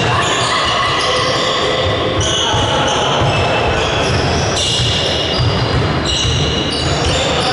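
Basketball game play on an indoor court: a ball bouncing and sneakers squeaking on the floor, with spectators' voices echoing in the gym.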